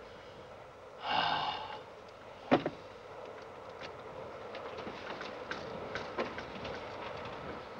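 Steady running noise of a railway carriage with faint scattered ticks. About a second in there is a short rushing noise, and a sharp knock comes about two and a half seconds in.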